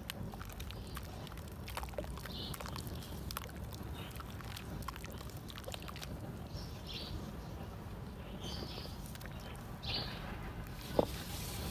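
Chunks of red dirt and concrete crumbling in water: scattered small crackles and soft sloshing, with one sharper knock near the end, over a steady low rumble.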